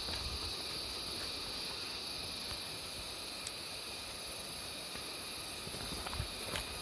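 A steady, high buzzing chorus of insects in tropical forest, with a few footsteps on a dirt trail thudding near the start and about six seconds in.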